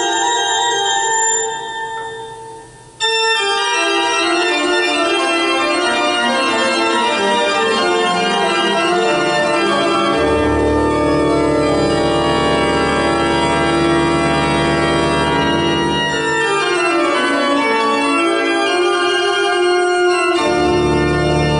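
Organ music playing sustained chords. It fades out about two seconds in and comes back abruptly a second later. A deep bass part enters about ten seconds in.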